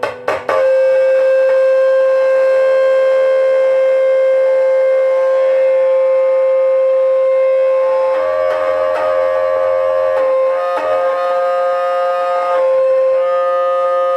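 1986 Marshall 4210 JCM800 combo amplifier squealing through its speaker: a loud, steady, pitched tone set off by tapping its circuit board with a chopstick. Light taps are heard at the start and again around the middle, where the upper tones shift. The noise follows tapping one part of the board, the sign of a bad connection or wire there.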